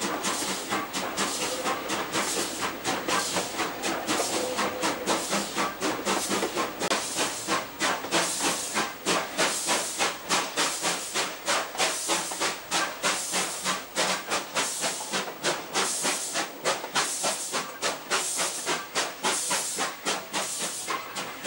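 Ex-Queensland Government Railways narrow-gauge tank steam locomotive 1047 working along, heard from its footplate: a steady beat of exhaust chuffs, about two a second, each with a burst of steam hiss.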